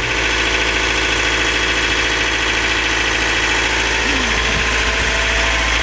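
Sailing yacht's inboard diesel engine running steadily, heard up close through the open engine compartment hatch.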